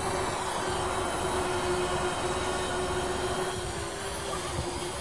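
DJI Spark quadcopter flying overhead, its propellers giving a steady, even hum, with wind rumbling on the microphone.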